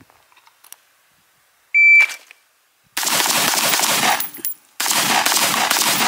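A shot timer's short loud beep, then two strings of rapid gunfire with a brief pause between them: about a second of shots, then a longer string running on. The shots come too fast, as the shooter puts it.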